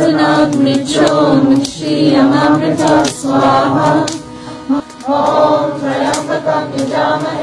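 A large group of men and women chanting a Vedic chant together in unison, in short phrases of about a second over a steady held pitch, with a brief lull about four seconds in.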